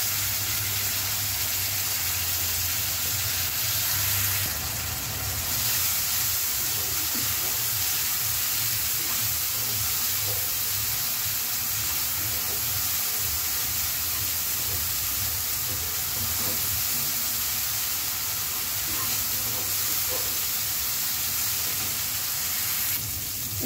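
Wet spice paste and browned onions frying in hot oil in a karahi: a steady sizzle as the masala is sautéed, with a wooden spatula stirring it.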